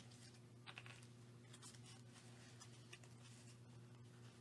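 Near silence: faint, scattered clicks and rustles of metal paper clips being slid off a small handmade journal's paper and fabric, over a steady low hum.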